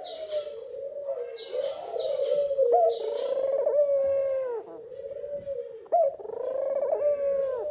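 Ringneck doves cooing, a low rolling coo that wavers on almost without a break: the male's nest call, given as he crouches in the nest to draw the female in. High chirps of other birds come in bursts about two seconds in.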